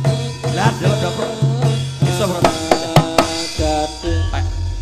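Live band music with drums and a bass line over a melody. A quick run of drum hits about two and a half seconds in leads into a new bass pattern.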